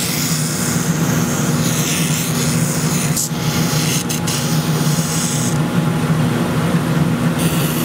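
Oscillating spindle drum sander running with a steady motor hum while a wooden spoon is pressed against its sanding sleeve, giving a gritty sanding hiss. The hiss drops away for a couple of seconds after the middle as the wood is lifted off the drum, then comes back.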